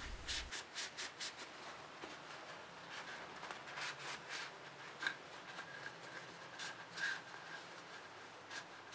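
A cloth rag wiping out the inside of an AR-15 upper receiver: faint, short rubbing strokes, several quick ones in the first second and more scattered after.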